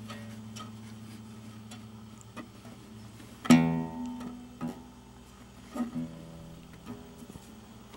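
Open strings of a nylon-string classical guitar plucked at random by a kitten's paw: a ringing chord dies away, then single loose plucks ring out unevenly, the loudest about three and a half seconds in, with light ticks of claws and whiskers against the strings between them.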